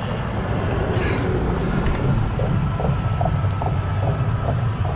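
Steady low rumble of wind on the microphone mixed with road traffic noise.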